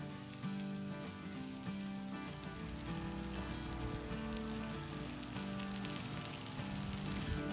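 Steaks sizzling on a hot Camp Chef flat-top griddle, a steady frying hiss.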